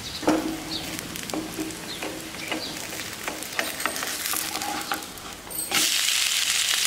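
A spatula scrapes and taps under a rice-flour uttapam in a nonstick frying pan. About six seconds in, the uttapam is flipped onto its oiled, topped side and the pan breaks into a loud, steady sizzle.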